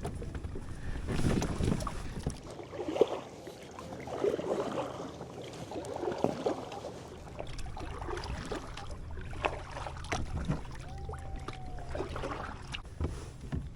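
Water splashing and lapping around a kayak on the move, in irregular swells, with a few light knocks against the plastic hull.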